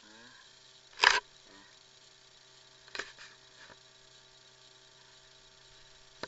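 Steady high-pitched chirring of an insect chorus, crickets or cicadas, with a loud knock about a second in and a smaller knock about three seconds in from the action camera being handled.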